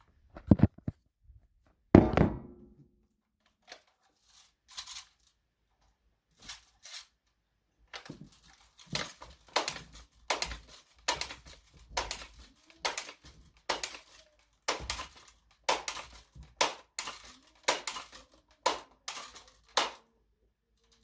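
One sharp knock with a short ringing tail about two seconds in, then from about eight seconds on a steady run of short scraping and rustling handling noises, about one to two a second, as a BB gun and a plastic coffee maker are handled.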